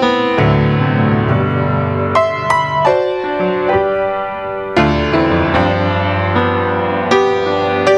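Solo piano playing a slow, gentle piece, with notes and chords struck and left to ring.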